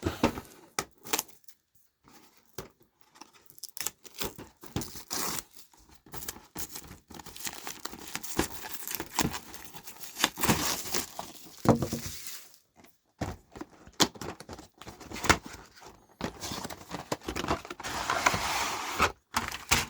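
A cardboard model-kit box being opened and its packaging handled: tearing and crinkling, with scattered clicks and bursts of rustling that come thickest about halfway through and again near the end.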